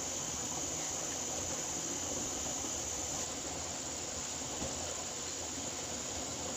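Insects chirring steadily in a high, even band over a constant background hiss. A higher-pitched part of the chorus stops about three seconds in.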